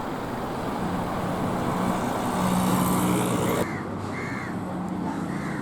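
Road traffic with a vehicle's engine growing louder for about three and a half seconds, then an abrupt cut to quieter traffic. Three short crow caws follow.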